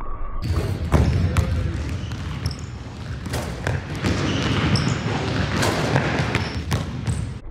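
Basketballs bouncing on a hardwood gym floor: a string of sharp thumps that echo through a large hall.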